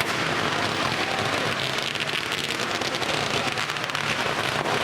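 Large bonfire of wooden shipping pallets and an old cabin cruiser burning, a steady crackling hiss with many small pops.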